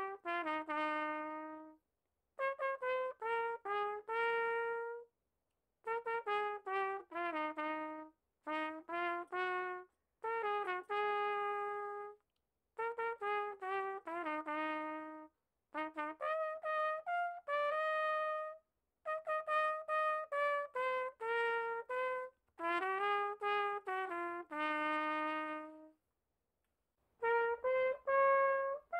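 Background music: a single brass melody, trumpet-like, played in short phrases of a few notes each, with brief silent gaps between them.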